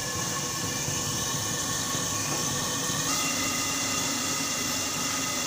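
A steady hum and hiss with several faint steady tones running through it, shifting slightly about three seconds in.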